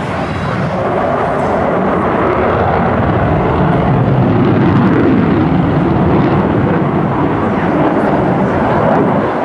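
Jet engine noise of an F-16 Fighting Falcon flying past, growing louder over the first few seconds, with a deep rumble strongest around the middle.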